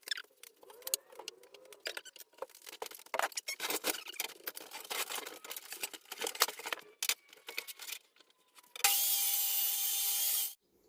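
A run of irregular clicks and taps from handling wood and tools, then a power tool runs steadily for about two seconds near the end and stops.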